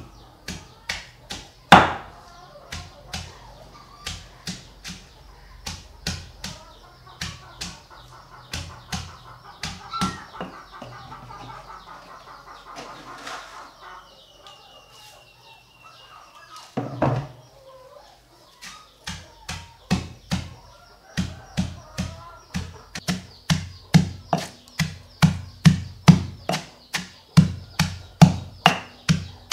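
Chickens clucking softly amid a run of quick, sharp taps, often about two a second, which grow louder near the end.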